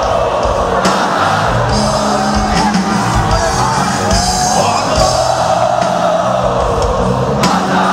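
Live rock band playing loudly and steadily, with a held, wavering melody line carried over the band.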